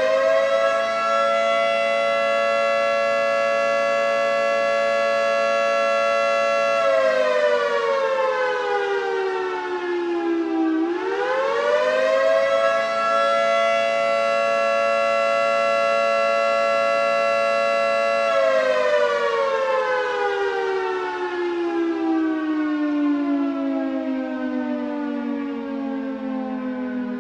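Federal Signal 3T22A three-tone rotating warning siren sounding its attack cycle, a wavering chord of several tones. It rises and holds steady for about six seconds, falls, rises again and holds, then winds down slowly through the last several seconds.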